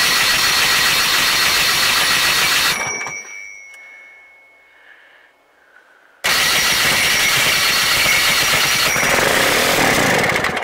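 Electric starter cranking the DT-75 tractor's combine-sourced diesel engine in two bursts of about four seconds each, with a pause of about three seconds between them. The engine does not keep running, and a brief high whine follows each burst as the starter stops.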